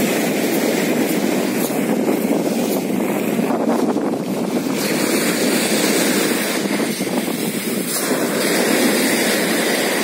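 Surf from a rough sea breaking and washing up the beach: a steady rush of foaming waves that rises and eases a little as each wave comes in.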